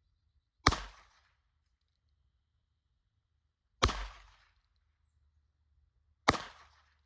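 Three single gunshots, a few seconds apart, each a sharp crack followed by a short echo dying away.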